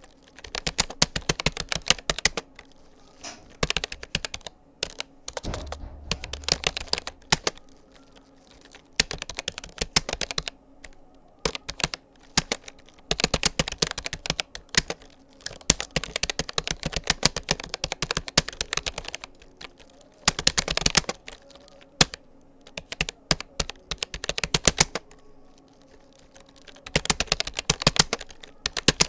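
Typing on a Rapoo computer keyboard: fast runs of key clicks in bursts of a few seconds, with short pauses between words and phrases.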